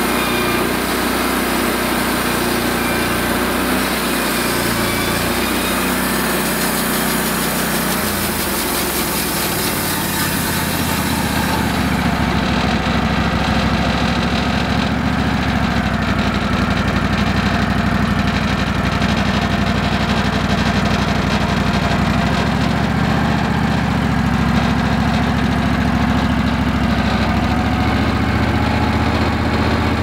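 Wood-Mizer LX150 portable band sawmill running steadily as its blade takes a flattening pass across the tops of upright log rounds, with a high hiss that drops away about twelve seconds in.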